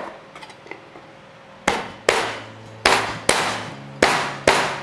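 Palm striking the flat of a chef's knife blade to crush a piece of ginger on a wooden cutting board. There are six sharp knocks in three quick pairs, starting a little under two seconds in.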